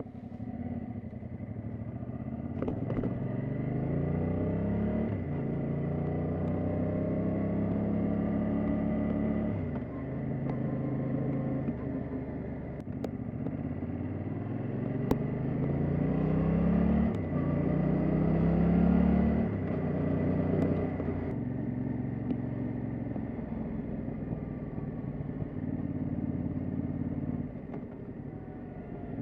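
Yamaha Tracer 700 motorcycle's parallel-twin engine running. Its note climbs as it is revved, holds, then falls back sharply, several times over, before running fairly steady.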